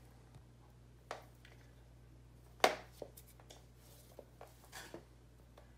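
A few light clicks and handling noises from a USB cable being fitted to a plastic USB Wi-Fi adapter standing in its dock, the sharpest click about two and a half seconds in, over a faint low hum.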